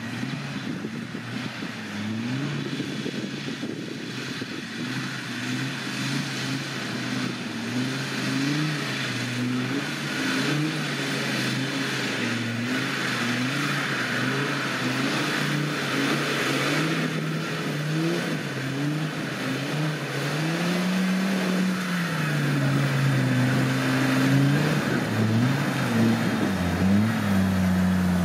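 Off-road 4x4 vehicle's engine revving up and down again and again as it works through the terrain, with one longer climb and drop in revs near the end.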